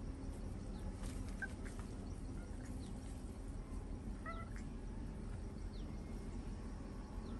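A baby monkey's short, high squeaky calls: a brief one about a second and a half in and a stronger one about four seconds in, over steady low background noise.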